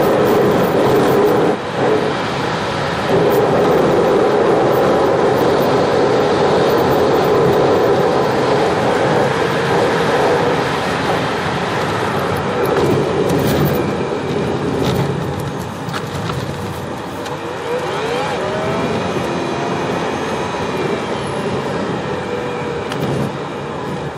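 Steady road and engine noise from inside a vehicle cruising along an iced-over highway, with tyre noise on the wet, icy pavement. A faint whine glides up and down about eighteen seconds in.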